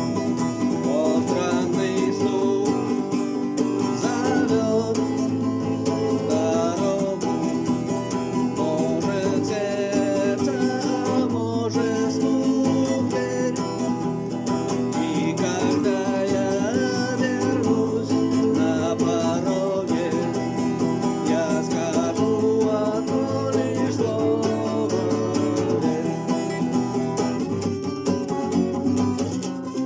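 A voice singing a song over guitar accompaniment.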